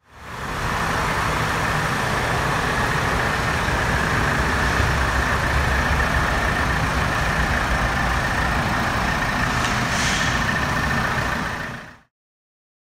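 Mitsubishi Fuso 4x4 truck's diesel engine idling steadily, with a short hiss about ten seconds in. The sound fades in at the start and fades out just before the end.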